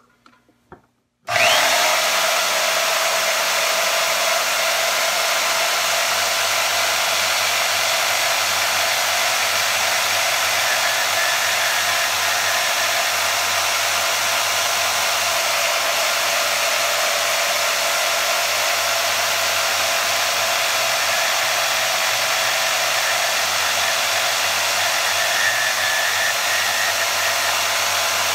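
Bauer 10-amp variable-speed portable band saw switched on about a second in: the motor winds up quickly and then runs steadily with an even whine and hiss.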